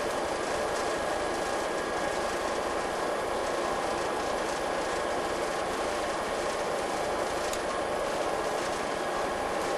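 Class 219 diesel locomotive running steadily, heard from inside its cab: an even engine and running noise with a faint steady whine, and one brief tick about seven and a half seconds in.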